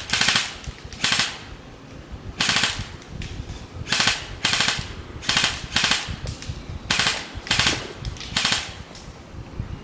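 Airsoft electric gun (AEG) firing short full-auto bursts: about ten quick rattling bursts, each under half a second, with brief pauses between.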